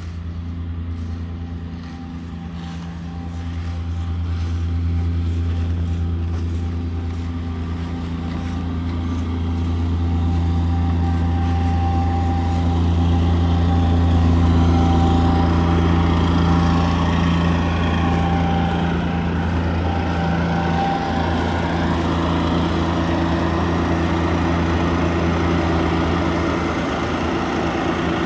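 Amazone Profihopper 4WDi ride-on mower-collector's diesel engine running steadily under load while its cutting and collecting unit picks up leaves, growing louder about a third of the way in.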